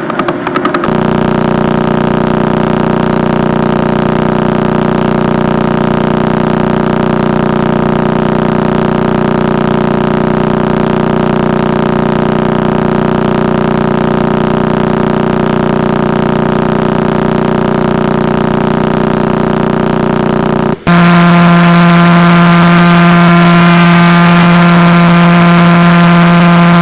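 Pulsar radio signals converted to sound: a steady, continuous buzzing hum, which switches abruptly about 21 seconds in to a different, louder buzz of another pitch as the next pulsar's recording begins.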